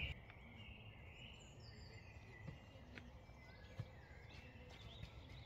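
Near silence: faint woodland ambience with a few distant bird chirps and one soft tick about four seconds in.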